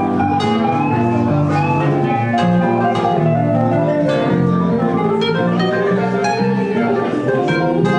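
Squier Stratocaster electric guitar and an electronic keyboard playing an instrumental piece together, a continuous run of notes with no pause.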